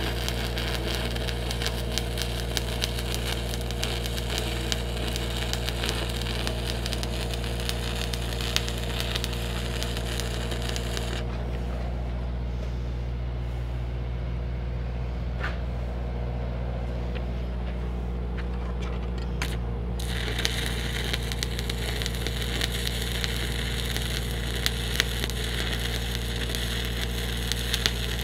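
Stick welding with 3/32 7018 rod: a steady crackling arc for about eleven seconds, a pause of about nine seconds broken by a couple of sharp clicks, then the arc crackling again. Under it all runs the steady hum of the engine-driven welding rig.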